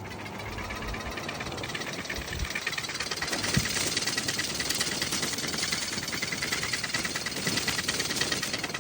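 Electrolux electric fan running with a fast, even rattle over a steady whine, growing louder over the first few seconds: the abnormal noise the fan makes.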